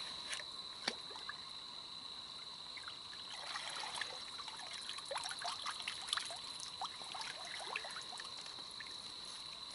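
Creek water trickling and splashing lightly as a woven cane fish trap is worked loose and lifted out of the water. Behind it runs a steady high insect drone.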